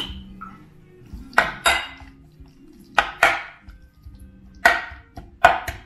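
A metal utensil knocking and scraping against a ceramic bowl while mashing roasted tomatoes and garlic into crushed chilies: about seven sharp knocks, several in quick pairs.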